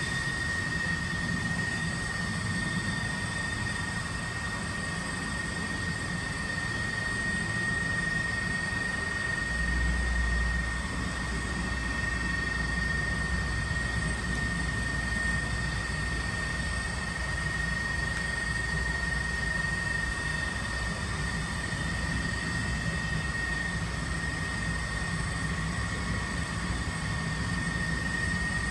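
Steady machine hum with a constant high whine over it, and a low rumble that swells briefly about ten seconds in.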